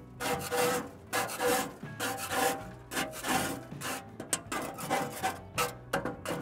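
Plastic putty knife scraping charred grease and ash off the metal inside a Masterbuilt Gravity Series 560 charcoal grill, in repeated strokes about two a second.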